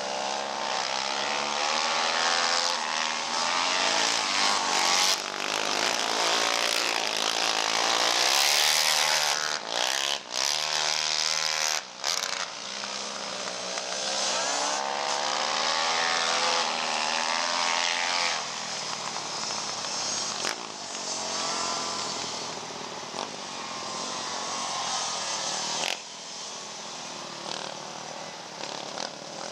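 Racing ATV engines on knobby-tyred quads, revving up and falling back over and over, their pitch rising and dropping with each throttle change.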